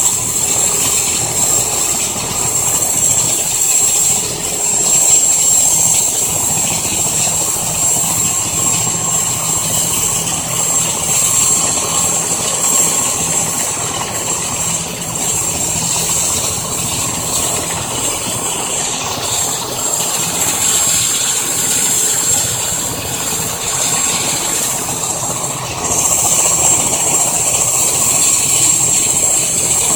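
Turbine engines of an EC-145 helicopter running during start-up: a steady high-pitched whine over a rushing hiss, the whine thinning briefly twice in the second half.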